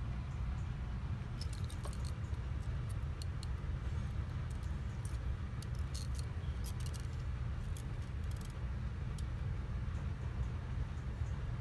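A steady low rumble with scattered light clicks and rattles, as of a bunch of asparagus spears knocking together while handled.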